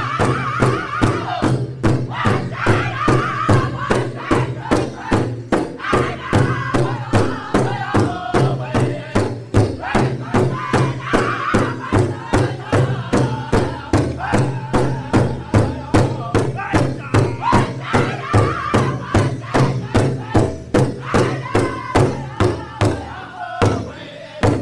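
Powwow drum group singing an intertribal song in full, high-pitched voices over a large shared bass drum struck in unison in a steady, even beat of about three strokes a second.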